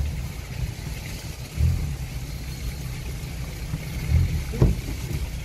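4x4's engine running at low revs, heard from inside the cabin as the vehicle crawls over rough ground. The engine swells louder with throttle twice, and there is a short knock near the end.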